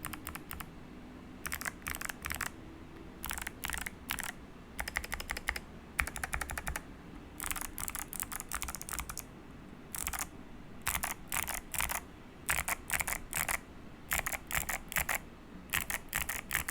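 Keychron V1 mechanical keyboard with clicky Kailh Box White switches and lubed screw-in stabilizers being typed on, the larger stabilized keys pressed in quick bursts of several sharp clicks with short pauses between bursts. The board is modded with foam, tape and a silicone dampener.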